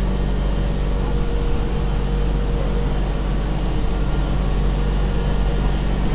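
Motorboat engine running at a steady pitch under a constant rushing noise.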